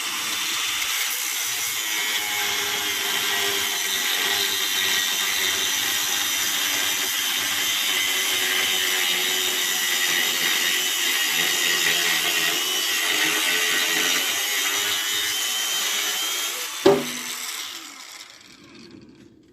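DeWalt DCG405FN cordless angle grinder with a cutting disc, running steadily under load as it cuts through a steel pipe with a wall about 4 mm thick, with a high whine over the grinding noise. Near the end a single sharp knock is heard, and then the grinder winds down.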